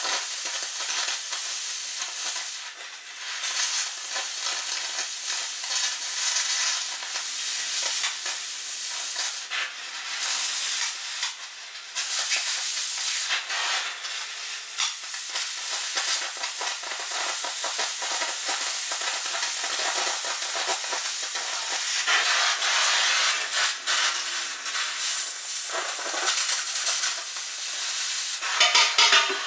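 Air carbon arc gouging on the steel blade of a John Deere 1010E forwarder: a steady, crackling hiss with a few short breaks where the arc stops, louder in the last several seconds. The arc cuts away the damaged steel along the blade's bottom edge.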